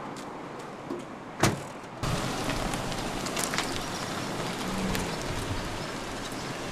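A car trunk lid slammed shut once, about a second and a half in. Then a taxi sedan driving away along the street, with steady engine and road noise.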